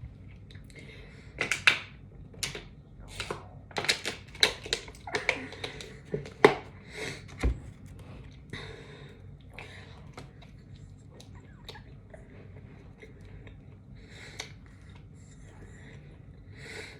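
Close-miked eating sounds of a sub sandwich: a busy run of crisp clicks and crackles for several seconds, then fainter, sparser ones.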